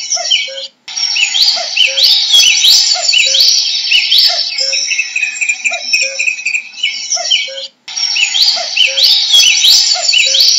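Common cuckoo calling its two-note 'cuck-oo', the second note lower, about once a second, over a busy chorus of other songbirds chirping higher up. The sound drops out briefly twice.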